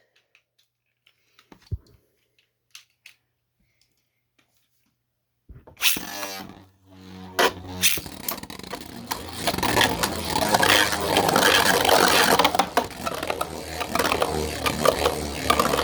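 A few faint clicks, then about five and a half seconds in two Beyblades are ripped from their launchers with a short whir and hit the stadium. From about two seconds later they spin and clash continuously, a loud dense rattle of scraping and sharp plastic-on-plastic hits.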